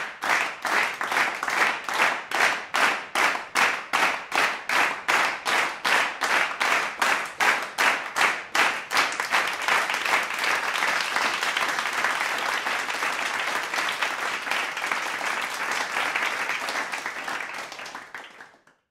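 A crowd clapping in time, about three claps a second. About nine seconds in it breaks into steady, even applause, which fades out near the end.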